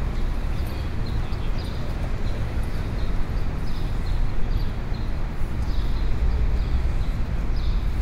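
City street ambience: a steady low traffic rumble with short sharp clacks repeating every half second or so.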